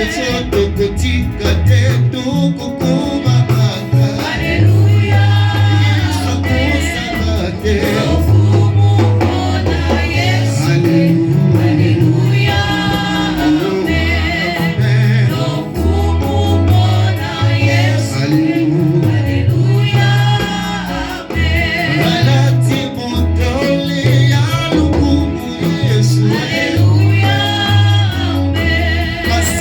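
Gospel worship music: singing, with choir voices, over a band with a strong bass line and a steady beat.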